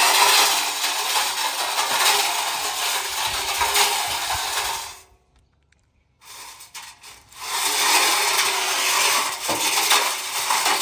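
Bricks grinding and rattling inside a Whirlpool washing machine's drum as it turns, a loud continuous scraping racket. It cuts out abruptly about five seconds in and starts again a second later.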